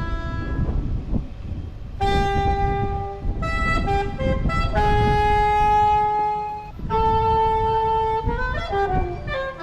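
A saxophone playing a slow melody in long held notes, with a few quick notes and a sliding phrase between them, over a steady low rumble.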